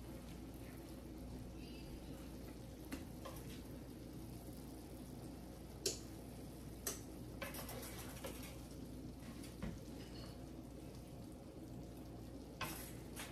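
A spoon scraping and tapping as it scoops rice-and-ground-meat filling from a skillet and packs it into bell peppers: a handful of short, irregular clicks. Under them runs a faint steady sizzle from the hot skillet.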